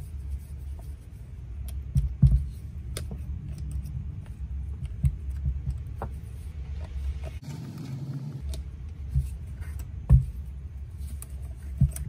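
Scattered metal clicks and knocks of a long driver and carburetor mounting bolts as a chainsaw carburetor is refitted and its bolts tightened, over a steady low rumble.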